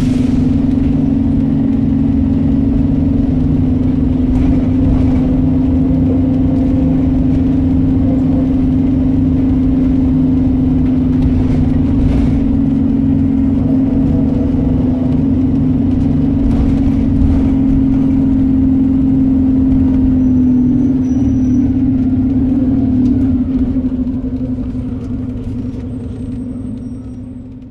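Inside a Volvo B7RLE single-deck bus on the move: its rear-mounted six-cylinder diesel and ZF automatic gearbox run with a steady low drone. The sound fades away over the last few seconds.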